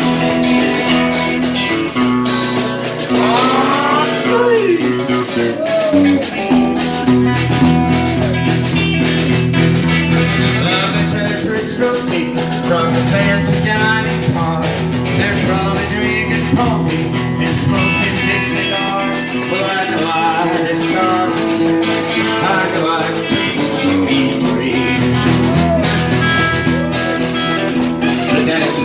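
Live band music: an acoustic guitar strummed along with an electric guitar, and a man singing.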